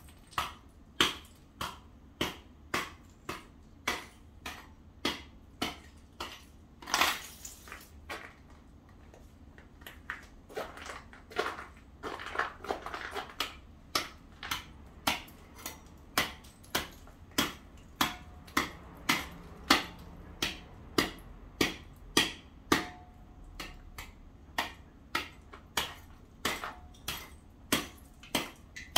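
A hand tool striking and chipping at ice on the driveway paving: sharp strikes about two a second, breaking off for a couple of seconds about a third of the way in, with a few longer scrapes.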